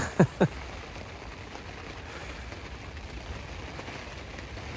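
Heavy rain falling steadily on a carp-fishing bivvy, heard from inside it. Two short laughs from the angler come right at the start.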